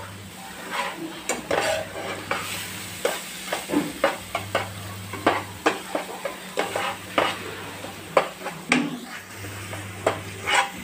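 A steel spoon stirring and scraping a frying onion-ginger-garlic masala paste around a nonstick pan, with irregular scrapes and taps of the spoon on the pan over a light sizzle of the spiced paste cooking in oil.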